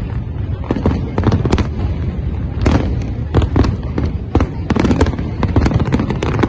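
Large aerial fireworks display: many sharp bangs from bursting shells in quick, irregular succession over a continuous low rumble.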